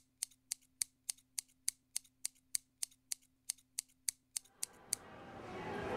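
Scissors snipping in a steady, even rhythm, about three and a half snips a second, stopping about five seconds in. Near the end a swell of music fades in and rises.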